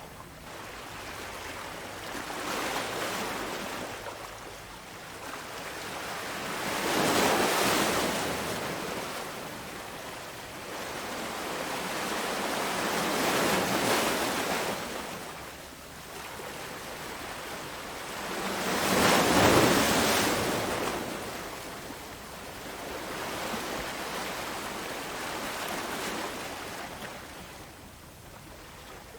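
Sea waves breaking and washing on a shore, swelling and falling back every few seconds, with the biggest breakers about a quarter, halfway and two-thirds of the way through.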